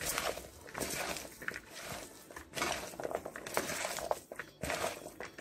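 A hand squishing and rubbing seasoning into boiled conch pieces and chopped bell pepper, scallion and onion in a plastic bowl, in irregular rustling strokes a few times a second.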